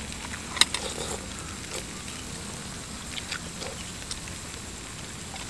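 Close-up eating sounds: noodles being slurped and chewed, with a few sharp wet clicks and smacks, the loudest about half a second in.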